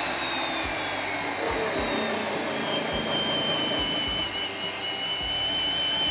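Hougen HMD904 magnetic drill running, its 1-1/16-inch annular cutter beginning to cut into half-inch structural steel under light feed to establish a groove. A steady motor and cutting noise with a high whine that slips slightly lower in pitch as the cut goes on.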